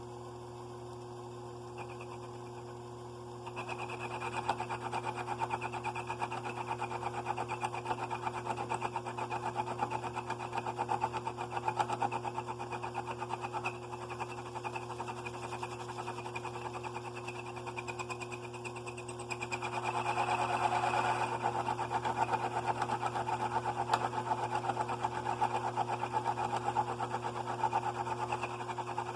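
A steady hum, joined a few seconds in by a fast, buzzing mechanical rattle from a small machine, louder about two-thirds of the way through.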